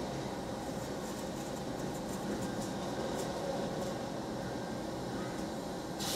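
Steady mechanical hum and air noise, heard from inside a car cabin, with a few faint high crackles.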